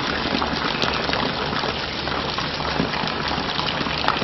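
A thin stream of water splattering steadily into a shallow muddy puddle, a continuous even patter with a few small splashes.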